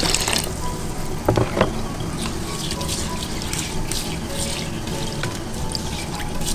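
A milky liquid pouring onto raw sticky rice in an aluminium pot, stopping about half a second in. Two light knocks follow, then a hand stirring and swishing the rice through the liquid with soft wet splashes.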